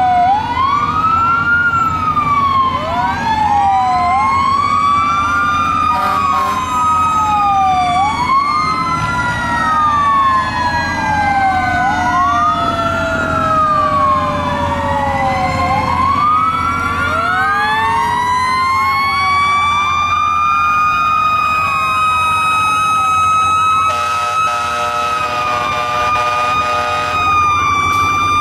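Several fire truck sirens going at once as the apparatus passes. One siren rises and falls about every two seconds. Another winds slowly down, then from just past halfway winds up and holds a steady howl. A horn blares briefly near the end, over the low rumble of the engines.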